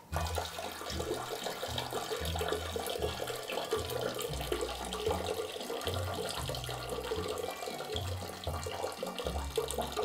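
Bathroom sink tap running, water splashing steadily into the basin, with a low bass line changing in steps underneath.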